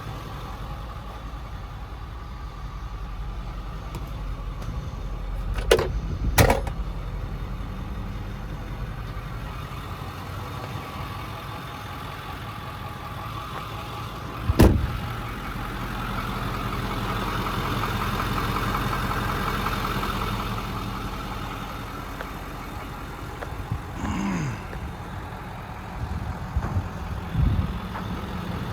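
The truck's 6.4 Power Stroke V8 turbodiesel idling steadily, with a few sharp knocks or clanks: two about six seconds in, one loud one around fifteen seconds, and more near the end. A higher hum swells and fades in the middle.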